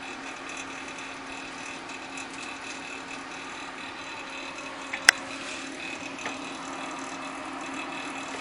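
Gaming PC making a loud, steady whirring noise, an intermittent fault whose cause the owner is unsure of and suspects may be a fan. A single sharp click about five seconds in.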